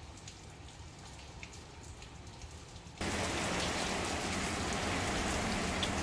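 Steady rain falling, at first faint with scattered drips, then suddenly much louder and denser from about halfway through.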